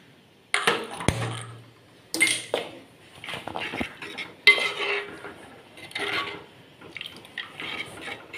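A steel ladle stirring a coconut-milk curry in a clay chatti pot, scraping and knocking against the pot's sides and bottom in a string of strokes, roughly one a second.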